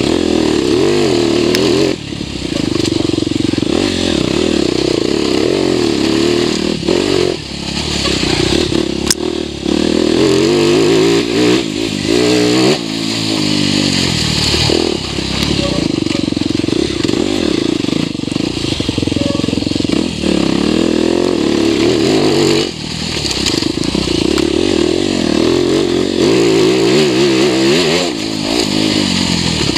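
TM EN 300 Fi enduro motorcycle being ridden hard on a dirt trail, its engine revving up and dropping back repeatedly as the throttle is opened and closed. Brief dips come about 2, 7, 12 and 23 seconds in.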